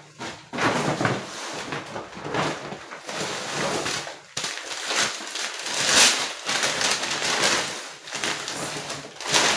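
Plastic grocery packaging rustling and crinkling in irregular bursts as items are handled and pulled from the shopping bags.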